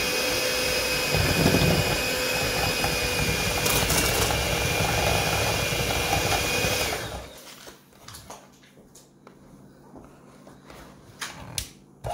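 Electric kitchen mixer running steadily, its beaters working through ingredients that are not yet at room temperature. It stops about seven seconds in, leaving a quieter stretch with a few light clicks and knocks, then starts up again at the very end.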